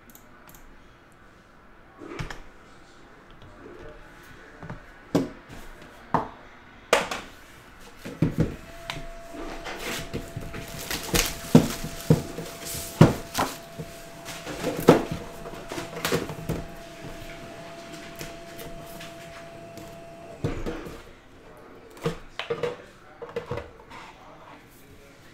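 Handling of a Panini Immaculate trading-card box: the cardboard sleeve slides off and the black metal tin is opened, giving a run of sharp knocks, clicks and scrapes. The densest run comes in the middle, with a faint steady tone alongside it.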